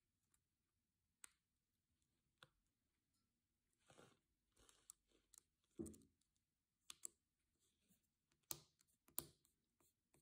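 Quiet plastic clicks and short scrapes as a double-width keycap with a metal stabilizer bar is fitted onto a Logitech keyboard's scissor key mechanism. It is slid over the hooks and then pressed down, with a few sharper clicks in the second half.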